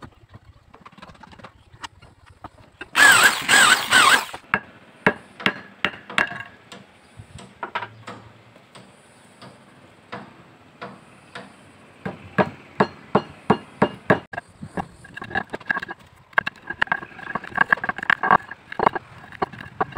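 Hand tools working wood: a knife blade shaving and scraping a small hardwood handle pin in short repeated strokes, about three a second in the second half. A loud harsh scraping burst comes about three seconds in.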